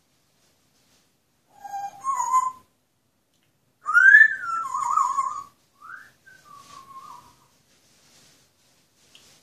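Pet parrot whistling a tune: a short pair of notes, then a louder whistle that rises and falls back, then softer falling notes.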